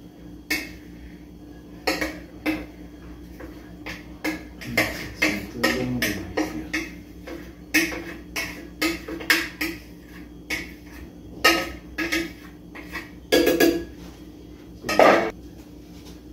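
Irregular clicks and knocks of a bowl and a glass blender jar knocking together as sweet corn kernels are poured and tapped into the jar, with the loudest knocks near the end as the jar is handled.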